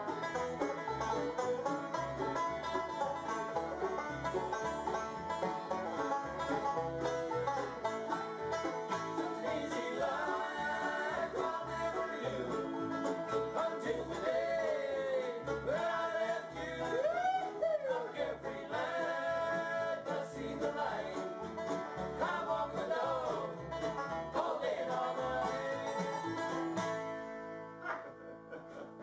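Bluegrass band playing an up-tempo tune on banjo, mandolin, acoustic guitar, fiddle and upright bass, with voices singing; the tune ends about two seconds before the end.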